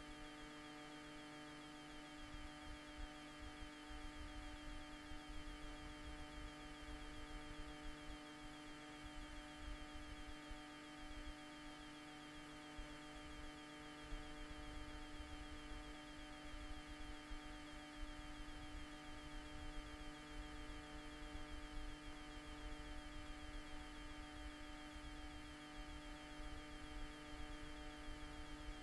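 Steady electrical hum made of several fixed tones, the strongest a low hum, over a faint fluttering rumble and hiss.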